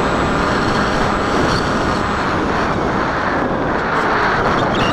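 Small RC flying wing's electric motor and propeller running steadily, heard from on board with heavy wind rush on the camera's microphone.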